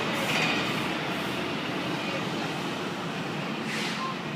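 Police cruisers and a black SUV driving past on a city street: a steady rush of engine and tyre noise, with a brief swish as a car goes by near the end.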